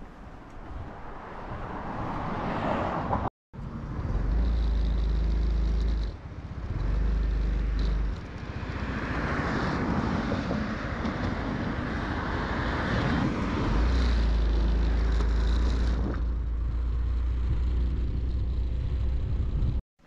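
Motorcycle on the move: engine running under rushing wind noise, with stretches of heavy low wind rumble on the microphone. The sound breaks off for a moment about three seconds in.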